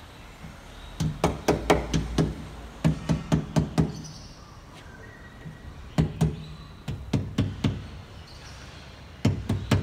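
Rubber mallet tapping a rubber edge-protector strip onto a car door edge: quick runs of knocks, several a second, separated by short pauses.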